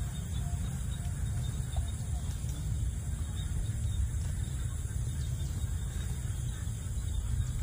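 Outdoor ambience dominated by a steady low rumble, with a few faint short chirps in the first couple of seconds.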